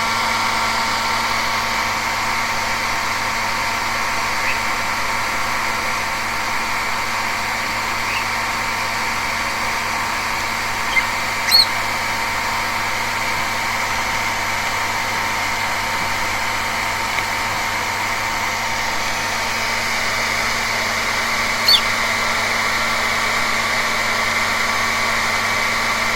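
Hair dryer running steadily with an even blowing hum, drying a rainbow lorikeet after its bath. A few short high chirps from the lorikeet sound over it, the loudest about halfway through and again near the end.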